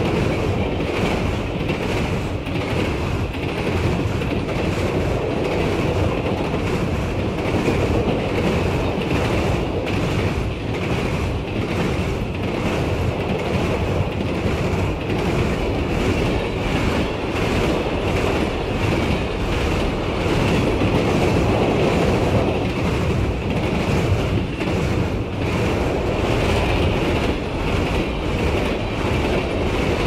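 Train rolling along the track: a steady rumble with an even clickety-clack of wheels over rail joints.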